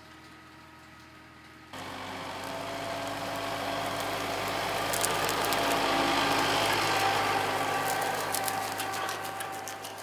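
Farm tractor's diesel engine running as it pulls a roller crimper past close by: faint at first, much louder from about two seconds in, peaking halfway through and then fading. Rapid clicking and rattling from the crimper and hitch over the second half.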